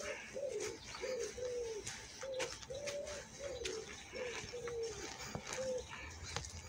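An animal calling over and over: about ten short notes, each rising and falling in pitch, roughly two a second.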